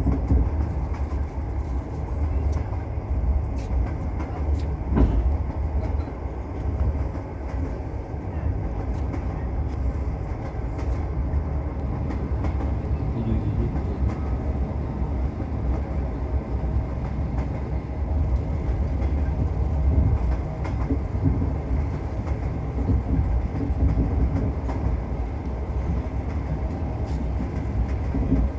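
Passenger train running steadily on the rails, heard from inside the carriage: a continuous low rumble of wheels and car body, with a few sharp clicks from the wheels over rail joints.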